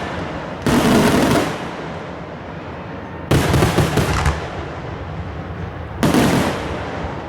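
Consumer fireworks going off in three bursts of rapid crackling reports, each about a second long and spaced about two and a half seconds apart.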